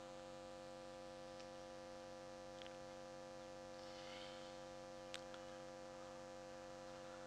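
Faint, steady electrical mains hum with a small click about five seconds in.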